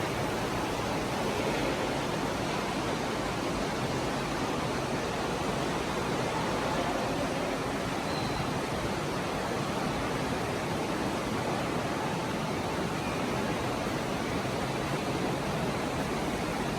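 Steady, even rushing noise of flowing water, unchanging throughout, with no distinct events.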